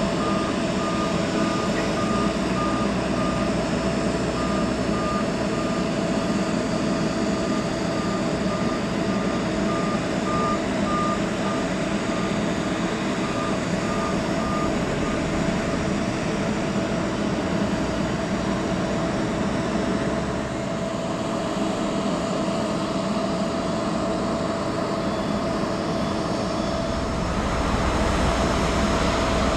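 Steady mechanical whine and hum of ground service equipment around a parked Boeing 767-300ER. For about the first half, a vehicle's warning beeper sounds in a regular train of short beeps. Near the end a low engine rumble grows louder.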